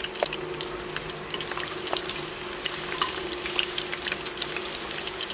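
Raw potato slices frying in hot oil in a clay pot, just after going in: a steady sizzle full of small crackles and pops, stirred with a wire skimmer.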